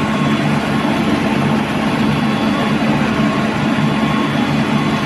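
Breakfast-cereal extrusion line running: a steady machine hum with a whirring noise over it.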